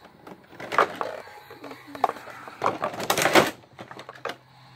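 Hard plastic toy van being handled: irregular clicks, knocks and clatter of plastic on plastic, the loudest flurry about three seconds in.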